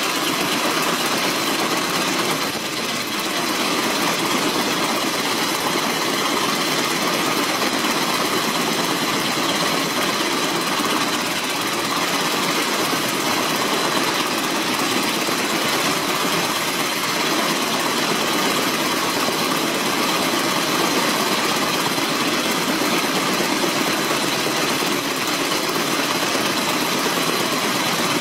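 Kaman K-MAX helicopter's turboshaft engine and intermeshing twin rotors running steadily on the ground, a steady high whine over a dense rush of engine and rotor noise.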